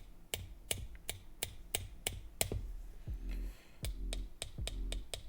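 A quick run of sharp, dry clicks, about three a second, with a pause near the middle. About three seconds in, a low steady music-like tone joins underneath.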